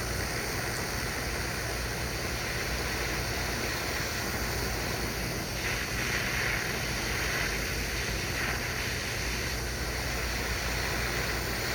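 Gas torch flame burning with a steady rushing hiss as it heats a lug on a 0 gauge cable up to soldering temperature.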